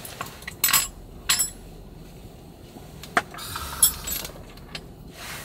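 Several sharp clinks and light knocks of small hard objects at irregular intervals.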